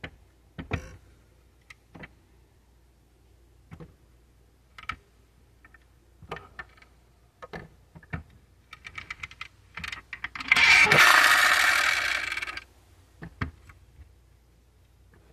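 Small clicks and taps of a 1/24-scale diecast Honda Civic Type R model being handled, its plastic and metal parts snapping. About ten seconds in, the toy car gives off a loud noisy burst lasting about two seconds that fades toward its end.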